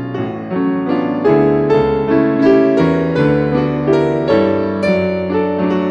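Piano music: a flowing run of notes, several to the second, over held lower notes.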